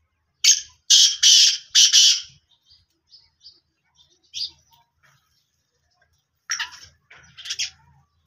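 Black francolin calling: a loud, harsh, grating phrase of about four notes starting about half a second in, and a second, shorter phrase near the end. Faint sparrow chirps come in between.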